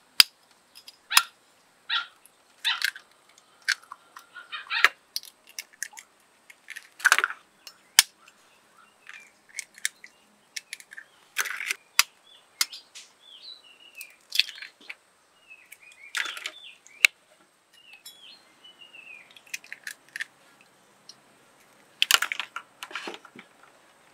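Eggs being cracked one after another: irregular sharp taps and cracks of eggshells struck against a fork and the rim of a dish. Birds chirp faintly in the background.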